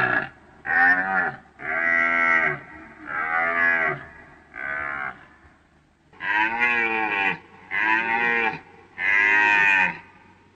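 Deer calling: a series of about eight drawn-out calls, each rising and then falling in pitch, with short pauses between them; one near the middle is quieter.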